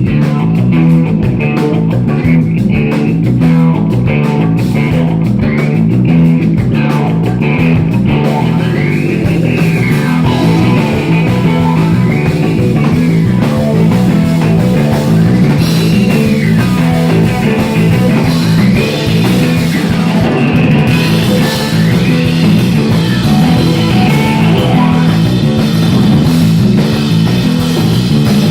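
Rock band playing live in an instrumental stretch: electric guitar over bass and drum kit, with a high note that rises and falls over and over through the middle of the passage.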